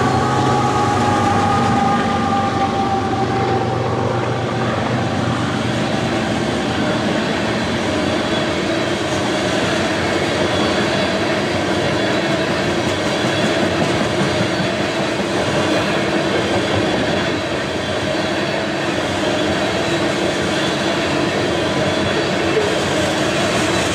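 Freight train passing close by: a diesel locomotive runs past with a steady engine tone in the first few seconds, then a long string of tank cars rolls by with continuous wheel-on-rail noise.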